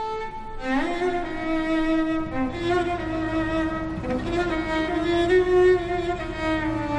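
Background score: bowed strings playing a slow melody of long held notes. A low steady rumble comes in underneath about two seconds in.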